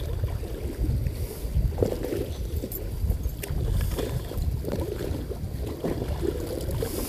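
Wind buffeting the microphone: an uneven low rumble, with a few faint clicks.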